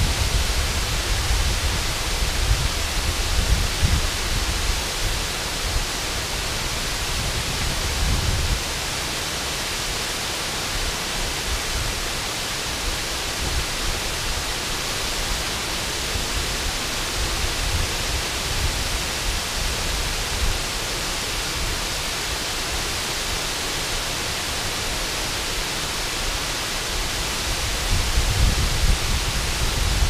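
Water pouring over a low dam spillway and rushing across rocks: a steady, dense hiss. A low, uneven rumble sits under it for roughly the first eight seconds and comes back near the end.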